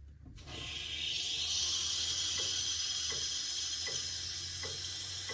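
Water rushing through a just-opened valve into a hydronic boiler system, a steady hiss that starts suddenly about half a second in. A light tick comes about every three-quarters of a second under the hiss.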